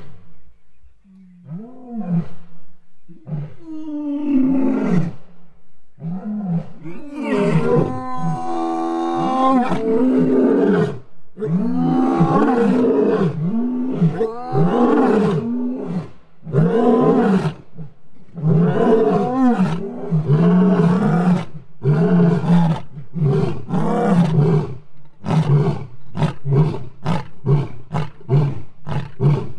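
Lions roaring in a territorial bout, a call that answers a neighbouring pride and claims territory. A few low moans build into long full roars, with more than one voice overlapping, then trail off into a run of short grunts that come faster and faster near the end.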